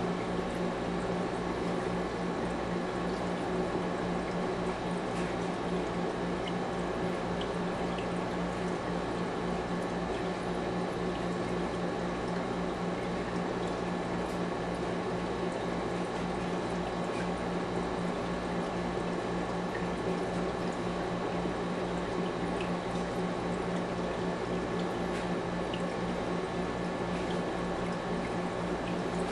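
Aquarium water trickling and splashing steadily from the tank's filter circulation, over a constant low hum.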